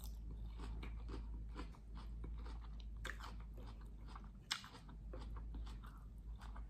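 Close-up chewing of crunchy food: a run of small wet crunches, with a couple of louder bites about three and four and a half seconds in.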